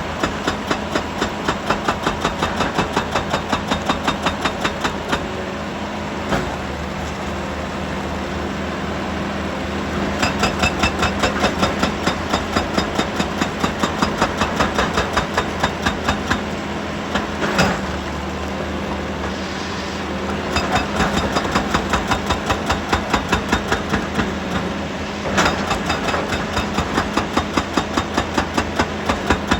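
Heavy diesel machinery running steadily, with a rapid rhythm of hard knocks, about two to three a second, that stops twice for a few seconds and then starts again.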